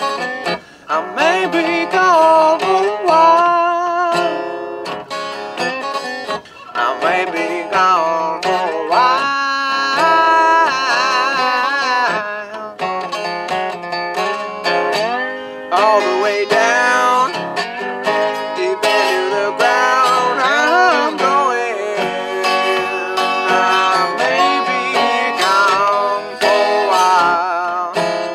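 Resonator guitar picked in a blues tune, with notes that bend and waver in pitch.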